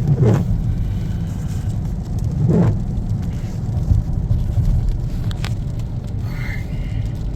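Steady low rumble of a car's engine and road noise heard from inside the cabin, with two short falling swooshes about a third of a second and two and a half seconds in.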